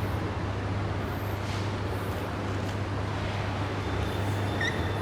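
Steady background rumble and hiss with a low hum. Near the end a short high chirp starts repeating, a few times a second.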